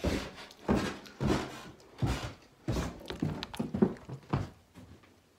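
Footsteps thudding at a walking pace, roughly two steps a second, with the knocks of a phone being carried by hand.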